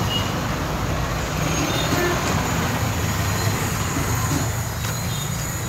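Busy road traffic noise: a steady rumble of engines and passing vehicles.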